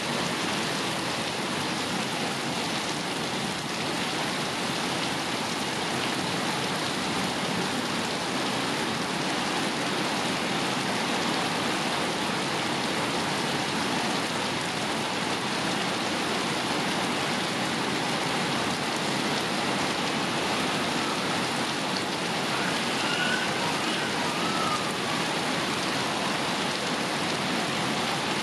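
Steady rain falling on the leaves of a mango tree, an even, unbroken hiss.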